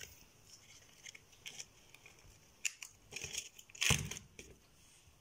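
Hands handling a cut-open aluminium drink can with a bulb being lowered inside: faint scattered crinkles, rustles and taps, the loudest about four seconds in.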